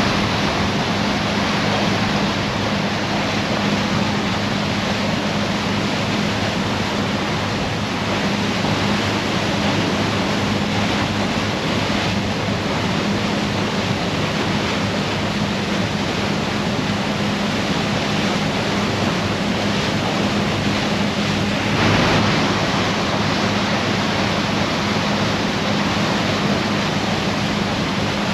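Sea water rushing and splashing along the hull of the Garinko-go icebreaking sightseeing ship under way, with wind and a steady low engine hum underneath. A brief louder surge of water about 22 seconds in.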